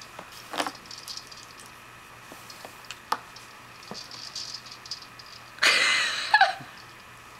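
Plastic toys on a baby's Exersaucer activity centre being handled: scattered small clicks and knocks, then a louder rattling burst about five and a half seconds in.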